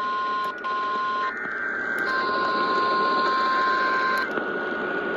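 Radio receiver static: a steady hiss with two thin steady whistling tones. The lower tone cuts out and comes back a few times.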